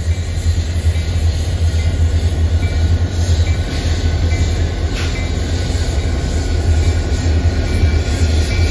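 Union Pacific six-axle diesel-electric locomotives passing, their engines giving a loud, steady deep rumble, with a single sharp click about five seconds in.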